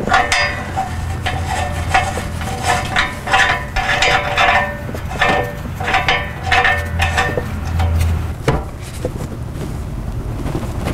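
Irregular metallic clinks, knocks and scrapes from an oxygen sensor being fitted back by hand into the exhaust pipe of an aftermarket catalytic converter.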